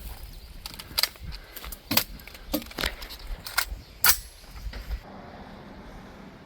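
Sharp metallic clicks and clacks of a rifle being loaded and readied, about five of them spread over the first five seconds, then quiet.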